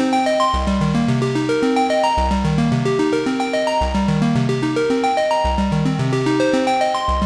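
Modal Cobalt 5S synthesizer playing an arpeggio: a fast, even run of short notes stepping up and down over a sustained bass note that changes every second and a half or so.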